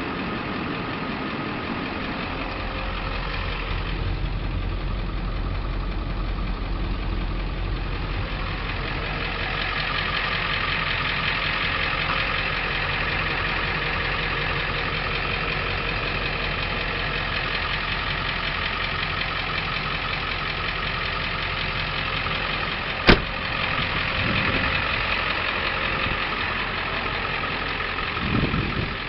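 Ford F550 truck engine idling steadily, with one sharp click about three-quarters of the way through.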